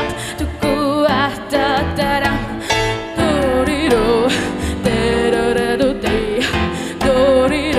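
Music: a wavering lead melody with vibrato over a steady accompaniment with low sustained notes, in a slow ballad.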